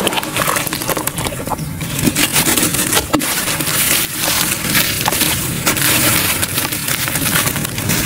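Hands squeezing and crumbling gritty charcoal in a round pan: continuous crunching and crackling, thick with small sharp clicks as pieces break and crumbs fall.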